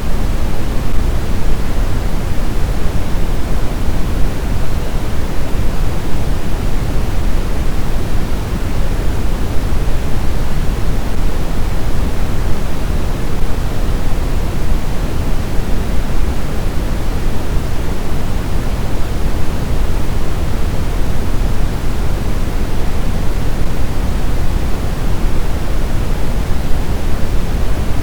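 Steady sleep noise, a pink-noise style hiss that is even and unchanging, weighted toward the deep end rather than the treble.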